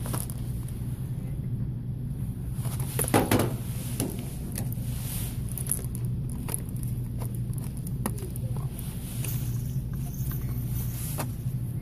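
Packaged cat toys being handled and moved on store pegboard hooks: light rustles and clicks of card and plastic packaging, with a louder rustle about three seconds in, over a steady low hum of the store.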